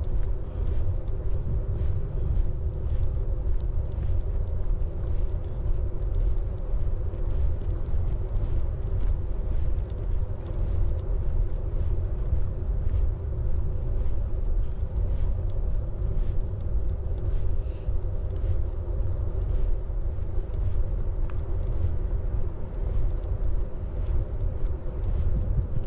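Footsteps of someone walking at an even pace, about two a second, over a steady low rumble with a faint hum.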